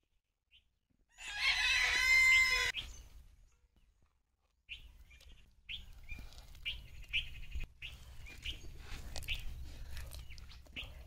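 A rooster crows once, about a second in, a single loud call of about a second and a half. From about halfway, a hand squelches and kneads raw egg into thick ground chana dal batter in the well of a stone grinder, with soft wet squishes and small clicks.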